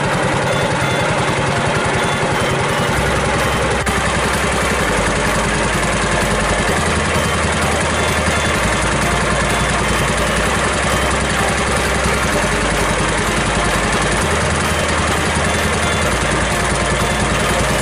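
A small boat's engine running steadily with a fast, even beat.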